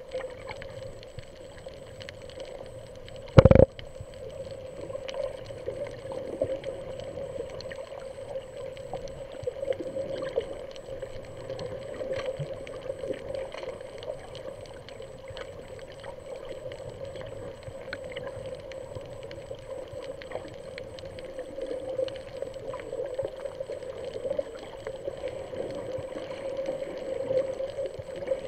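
Underwater sound picked up by a camera over a coral reef: a muffled steady hum with faint crackling clicks throughout, and one loud thump about three and a half seconds in.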